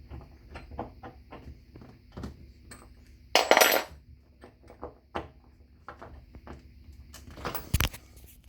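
Washing machine transit bolt being unscrewed and handled with its supplied tool: a run of light metal clicks and clinks, with a louder scrape lasting about half a second a little past midway and a sharp knock near the end.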